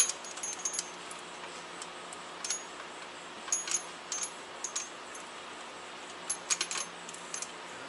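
Small metal fittings and hand tools clicking and clinking in scattered clusters as hands work on the fuel-line connections of a DD15 diesel engine, the busiest run about six and a half seconds in, over a faint steady hum.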